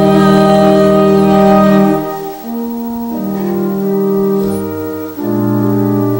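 Organ holding the loud final chord of a hymn, which stops about two seconds in; quieter sustained chords follow, changing a few times.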